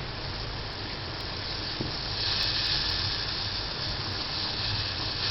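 Pan of spiced turmeric milk heating toward the boil, giving a steady hiss that grows louder and brighter about two seconds in as the milk begins to froth up.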